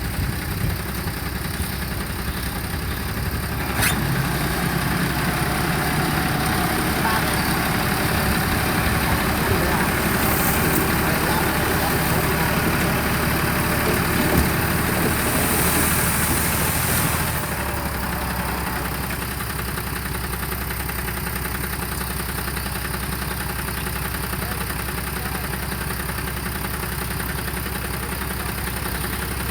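Diesel engine of a heavy construction machine running, louder through the first half and then settling to a steady idle about 17 seconds in.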